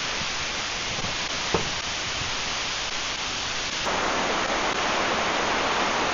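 Steady rush of water falling over the Kuang Si Falls cascades, stepping up louder and brighter about four seconds in.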